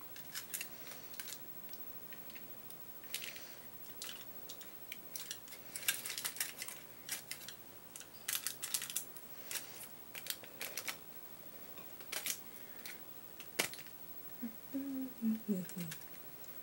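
A utensil scraping and clicking irregularly against a foil-lined metal pan as thick fudge is spread out in it.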